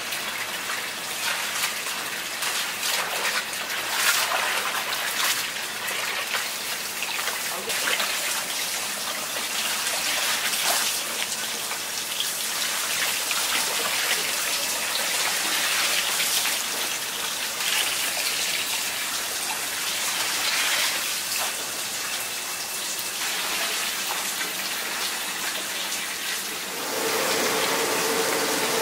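Running tap water and splashing as gloved hands stir and rinse chopped napa cabbage in a large tub of water. Near the end the water sound gives way to a steadier hum.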